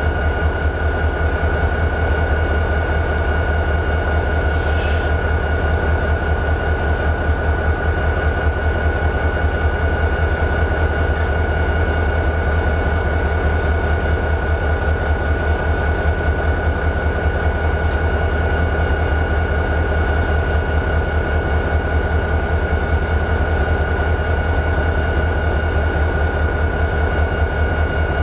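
EMD 645 diesel of a CSX GP40-2 locomotive idling, turbocharged 16-cylinder, with an even low beat and a steady high whine over it.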